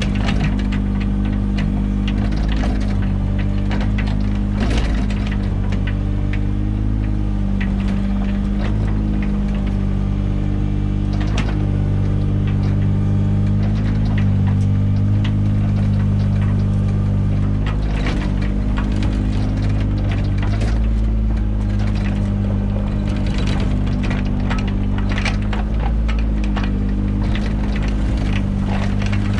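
Mini excavator's diesel engine running steadily while it digs, with scattered knocks and scrapes from the digging, the sharpest about five seconds and eleven seconds in.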